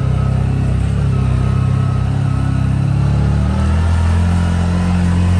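Off-road vehicle engine running steadily on a trail ride, its note changing about three and a half seconds in.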